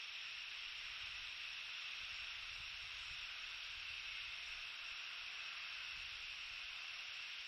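Steady, even hiss of a nest camera's microphone, with a faint low rumble in the first half.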